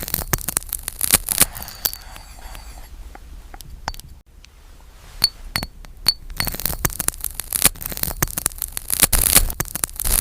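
Glassy cutting sound effect of a knife slicing through a glass banana: a dense run of crisp cracks, clicks and scraping crackle. A few sharp ringing clinks stand out about five to six seconds in, and the crackle grows thicker and louder toward the end.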